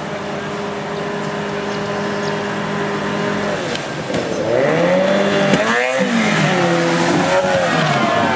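Racing powerboat's outboard engine running through river rapids: a steady drone at first, then from about halfway it gets louder and the revs rise and fall repeatedly, peaking as the boat passes close by about six seconds in. Rushing white water runs underneath.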